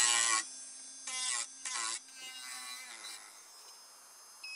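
Rotary carving tool spinning a half-inch Saburrtooth bur, grinding into the wood of a carved snake walking stick in short passes while roughing out the shape. It makes a steady whine with a rasping cut, loudest at the start, then two brief passes, and drops away to faint hiss about two seconds in.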